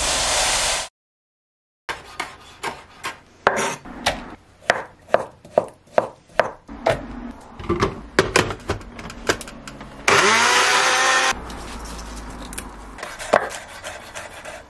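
A kitchen knife chopping on a wooden chopping board in a run of sharp, irregular knocks, broken about ten seconds in by a small electric blender whirring up to speed for just over a second. The chopping continues after the blender stops.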